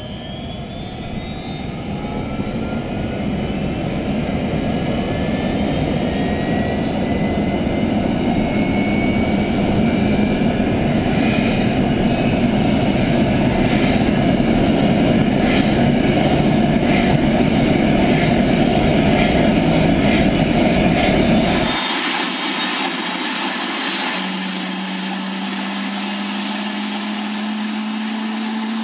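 Eurocopter AS350 B3+ Ecureuil helicopter starting up: the single turboshaft engine's whine rises in pitch and grows louder as the engine spools up and the main rotor begins to turn. About 22 seconds in the sound changes abruptly to a thinner, steadier whine whose tone slowly rises.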